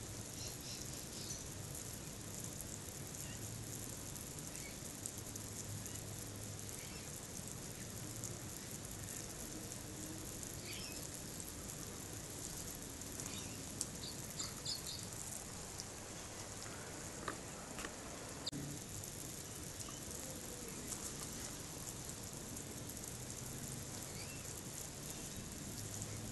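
Backyard ambience: a steady hiss with a few short bird chirps and scattered light clicks.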